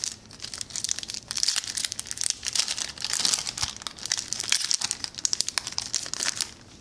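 Foil wrapper of a 2017 Topps baseball card pack being crinkled and torn open by hand: a dense, continuous run of sharp crackles that stops shortly before the end.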